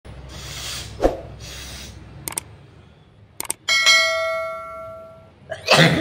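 Subscribe-button sound effect: a couple of short clicks, then a bell ding that rings out for about a second and a half and fades. Just before the end a woman sneezes once. Earlier there are two breathy noise bursts with a thump between them.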